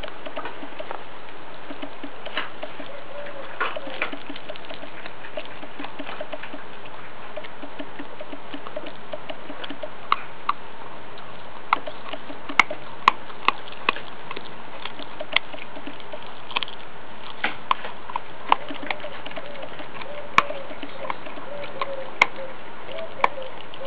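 A Groenendael puppy chewing a piece of raw guineafowl carcass, the bones giving irregular sharp cracks and crunches that come thicker in the second half.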